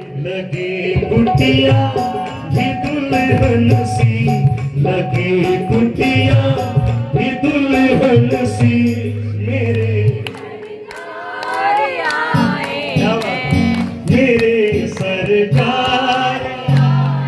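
Live Hindu devotional bhajan: singing over drums and other instruments. The music drops briefly about ten seconds in.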